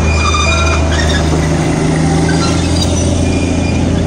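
Darjeeling Himalayan Railway narrow-gauge diesel locomotive passing close by, its engine a steady low drone, with short high squeals from the wheels working round a curve.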